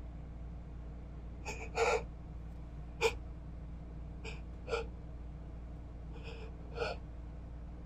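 A man's short, sharp breaths, mostly in pairs about every second and a half, as he builds up to a sneeze that stays stuck and does not come.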